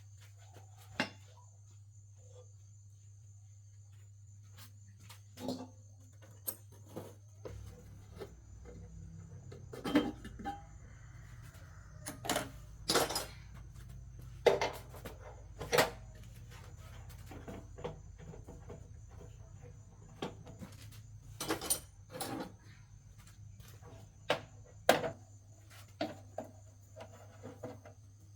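Workshop hand work on metal parts: scattered knocks and clinks of tools and parts being handled and set down, over a steady low hum, with a low rumble joining about a quarter of the way in and fading out later.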